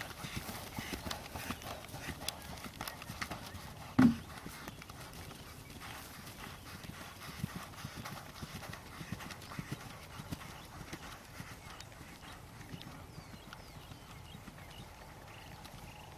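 A horse galloping on turf, its hoofbeats drumming in a steady rhythm. About four seconds in there is one short, loud sound that stands out above the hoofbeats.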